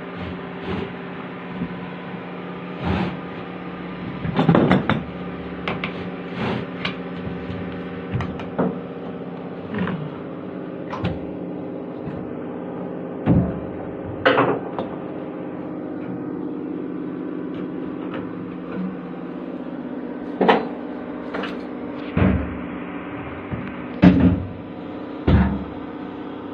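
A steady machine hum with a low tone runs throughout. Irregular knocks and clatters come every second or two, and these are the loudest sounds.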